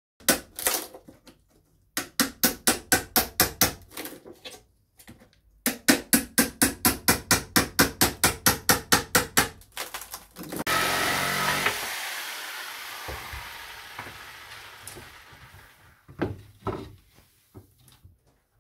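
Hammer blows on metal in quick runs of about four strikes a second, each with a short ring. About ten seconds in, a loud scraping, rattling rush takes over and slowly fades, followed by a few last knocks.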